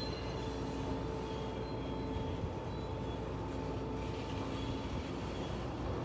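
Wind blowing across the microphone: a steady low rumble, with a few faint steady tones behind it.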